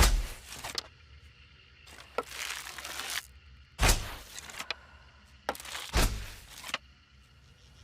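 Bow and arrow shots, about four in a row: each a sharp thump of the string's release followed by a short noisy whoosh.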